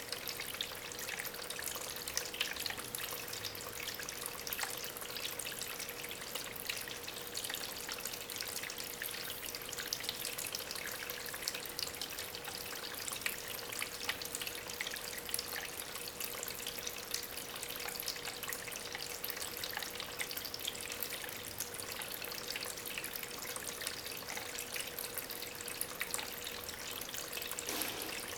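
Water from a small homemade waterfall, pumped by an aquarium pump, trickling and splashing over stones in a steady stream with many small drips and splashes. A faint steady hum sits underneath.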